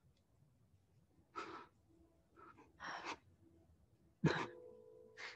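A man's sharp, uneven breaths, about five in a few seconds, the loudest a sudden gasp about four seconds in. A faint held note of music comes in just after it.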